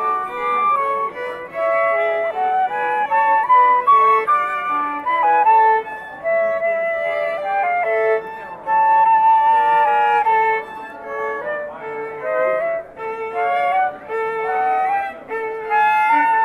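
Violin and flute playing a classical piece together, a lively line of many short notes with no break.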